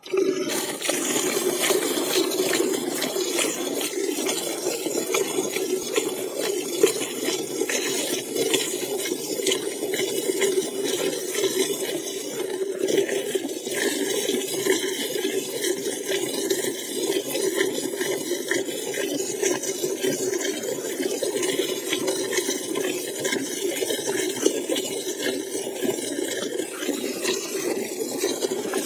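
Buffalo being milked by hand: streams of milk squirting from the teats into a metal pail and splashing into the frothy milk already in it, a steady run of small liquid strokes.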